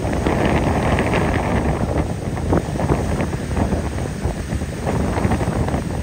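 Wind gusting over the microphone on the deck of a passenger ferry under way, over a steady low rumble of the ferry's engine and water rushing past the hull.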